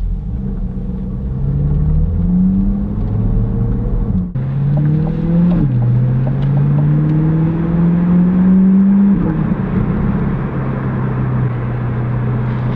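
2021 C8 Corvette's 6.2-litre LT2 V8 running through a 2M Fabrication cat-back exhaust, heard from inside the cabin while accelerating through the gears. The engine note climbs, drops at an upshift about five and a half seconds in, climbs again and drops at a second upshift about nine seconds in, then holds steady at a cruise.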